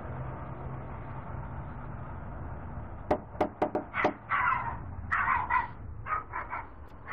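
Five quick knocks on a front door about three seconds in, followed by a dog barking several times inside the house.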